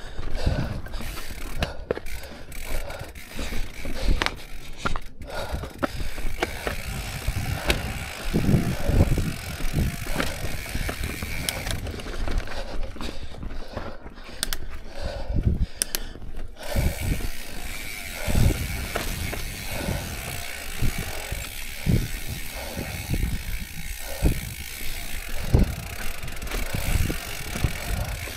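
Mountain bike coasting down rocky singletrack: the rear hub's freewheel ratchet buzzing steadily, with frequent knocks and rattles from the tyres and bike over rocks.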